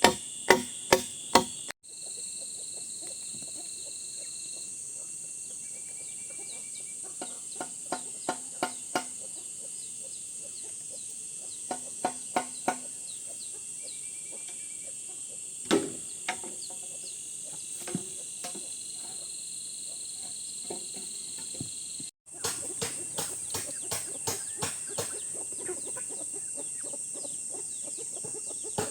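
Steady high chirring of crickets or similar insects, with runs of short, sharp knocks every so often; the sound cuts out briefly twice.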